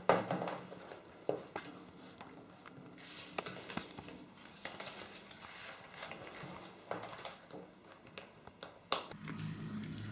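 Handling a small leather shoulder bag: the flap and its contents rustle and knock, with a loud knock at the start and a few sharp clicks of the bag's snap fastener, one just before the end. A low steady hum comes in near the end.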